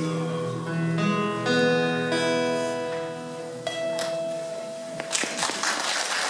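Acoustic guitars playing the closing chords of a song, several chords struck and left to ring out. About five seconds in, the ringing gives way to audience applause.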